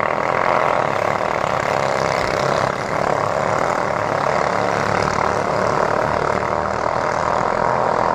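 Small Chinese-made single-cylinder engines of ketinting longtail racing boats running flat out, a loud, steady, unbroken buzz.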